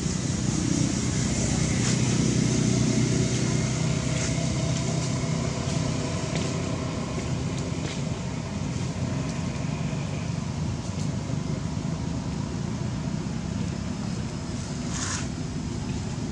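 Steady low outdoor rumble, a little louder for the first few seconds, with a few faint ticks and one brief sharper sound near the end.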